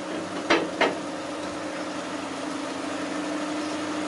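A steady machine hum at a constant pitch, with two sharp knocks about a third of a second apart just after the start.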